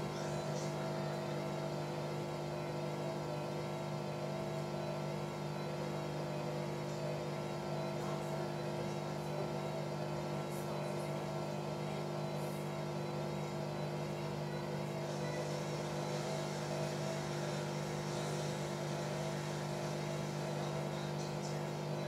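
Hoover front-loading washing machine humming steadily as its drain pump runs with the drum at rest, pumping out excess foam: the machine's suds-lock routine for an over-sudsed wash.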